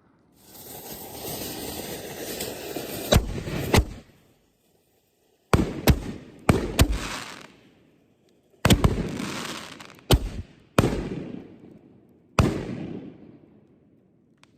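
5-inch aerial canister shells firing in quick succession from a fused rack. A steady hiss runs through the first few seconds, then come about ten sharp booms in clusters, each fading out in a rolling echo.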